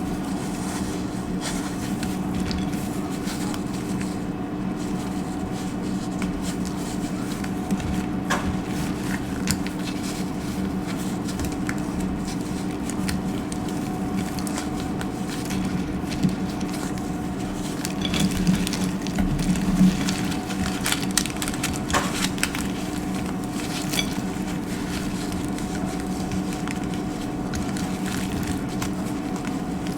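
Dry soap being cut and crushed: scattered crisp crackles and crunches, busiest around the middle, over a steady low hum.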